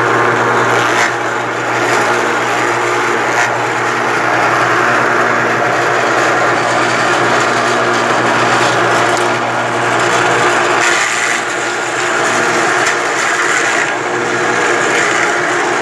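Forage chopper (picadeira) running steadily while cassava branches and leaves are fed into its hopper, the motor hum mixed with the noise of stems and leaves being shredded. The hum shifts about eleven seconds in.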